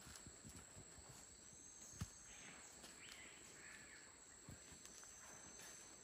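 Near silence: faint rainforest ambience with a steady high insect drone, a few soft low thumps on the leaf litter and one sharp tick about two seconds in.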